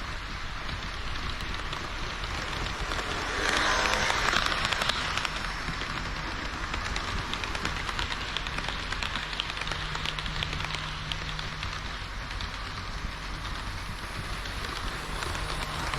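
HO-scale model train of KiHa 40 and KiHa 58 diesel railcar models running on the layout's track: a steady rattling clatter of wheels on rail, louder for a second or so about three and a half seconds in. A low steady hum joins about halfway through.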